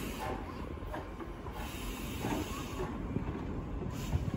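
Japanese D51 steam locomotive, No. 146, rolling slowly under compressed air: a steady hiss of its exhaust over a low rumble of the running gear on the rails.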